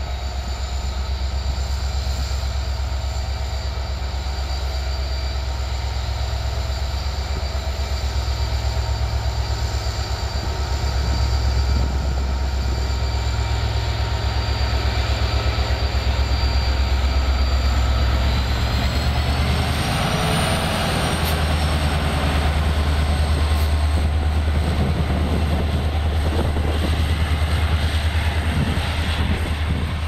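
Diesel locomotive of an express train pulling out and passing: a deep engine drone with a steady high whine. About two-thirds of the way through, the whine rises as the locomotive comes close, and then the coaches rumble and clatter past.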